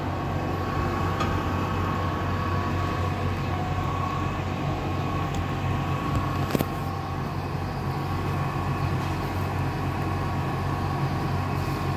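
Steady mechanical hum of running machinery, low and even with a constant higher whine over it, and a single sharp knock about six and a half seconds in.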